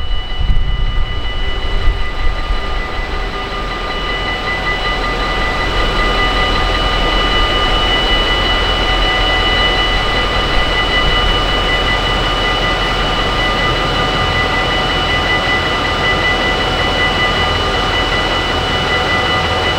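A train running, with a steady high whine of several pitches over rolling noise, growing gradually louder a few seconds in. Gusty wind rumble on the microphone in the first seconds.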